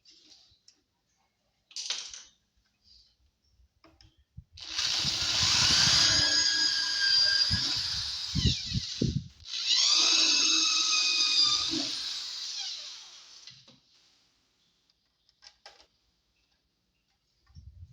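Electric drill boring holes in a subwoofer speaker box, run twice for several seconds each. The motor's whine drops as it slows at the end of the first run, then rises again as it speeds up for the second.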